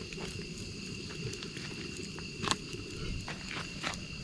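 Crickets or other night insects chirping steadily, with the wood campfire crackling: a few sharp pops, the loudest about two and a half seconds in.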